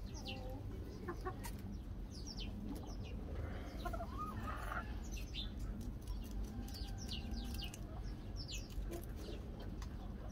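Crested Polish chickens clucking, amid repeated short, high chirps that fall in pitch and come in twos and threes.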